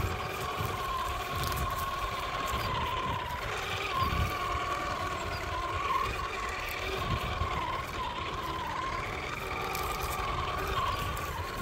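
RC car motor whining steadily, its pitch wavering slightly up and down with the throttle, over an uneven low rumble with a few thumps.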